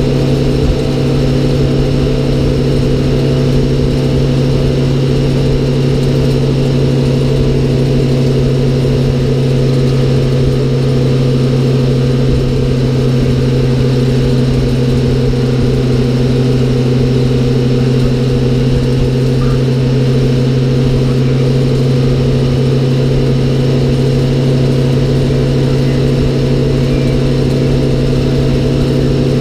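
A 1971 American LaFrance Aero Chief fire truck's engine drones steadily at constant speed while the truck cruises down the road, heard from inside the cab with low road and wind rumble underneath. The pitch holds level throughout.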